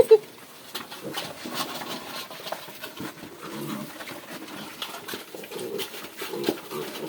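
Pigs grunting repeatedly, with scattered sharp clicks and two loud short sounds right at the start.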